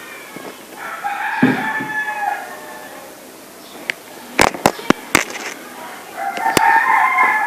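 A rooster crowing twice, each crow a long held call that drops off at the end, with a quick run of sharp clicks between the two crows.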